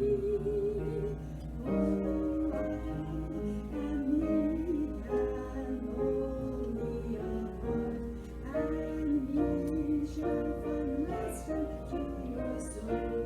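Slow music: a wavering, vibrato melody held over soft chord accompaniment, changing note about once a second.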